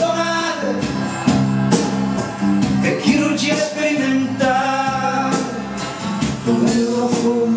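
A song with singing over a band accompaniment, playing steadily.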